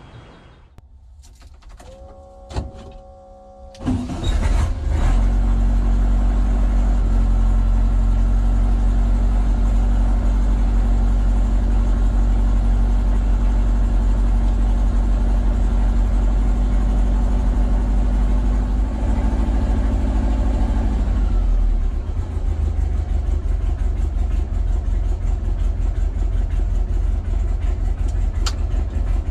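The air-cooled VW Beetle's 2054cc stroker flat-four, on dual Weber IDF 44 carbs with a stinger exhaust, starts about four seconds in and then runs steadily at idle, heard from inside the cabin. Around two-thirds of the way through the idle note changes and runs more unevenly.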